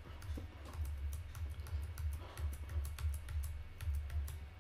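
Typing and clicking on a computer keyboard and mouse: a run of light, irregular clicks, over a low hum that swells and fades.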